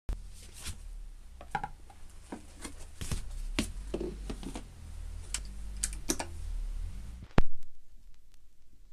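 Scattered handling clicks and knocks over a low steady hum, ending in one sharp, loud click about seven seconds in, after which the hum drops away.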